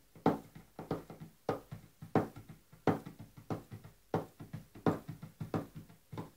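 Hands drumming a steady beat on a wooden tabletop, a loud strike about every two-thirds of a second with lighter taps between.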